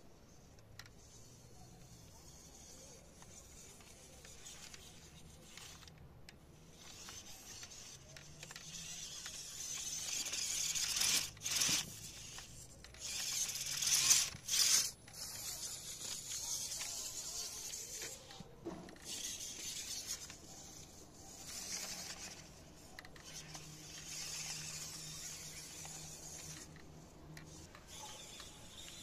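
Small electric drive motors and printed gearing of a 1:24-scale 3D-printed RC Land Cruiser crawler whirring as it drives over loose dirt, with gritty scraping of its soft TPU tyres on the soil. It is loudest in the middle, with two sharp peaks, then lower swells.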